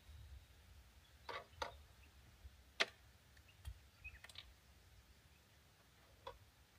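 A few scattered light clicks and knocks of camping gear being handled, the sharpest about three seconds in, over quiet outdoor background.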